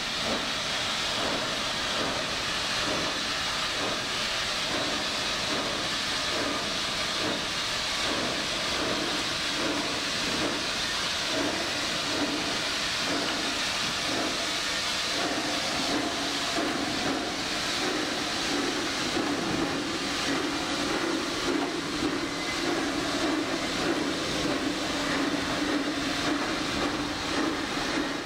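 Orenstein & Koppel five-coupled (0-10-0) Luttermöller-type narrow-gauge steam locomotive working, with a steady hiss of steam and a regular beat of exhaust chuffs, about one and a half a second. The beat gives way to a more even hiss and rumble in the second half.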